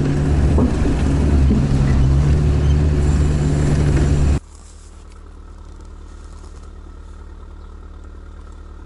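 All-terrain vehicle's engine running steadily while driving, heard inside the cab as a loud low drone. A little over four seconds in it cuts abruptly to a much quieter, steady low engine hum heard from outside the vehicle.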